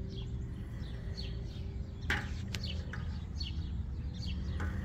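Birds chirping: short, falling chirps repeated a couple of times a second over a steady low rumble, with a sharp click about two seconds in.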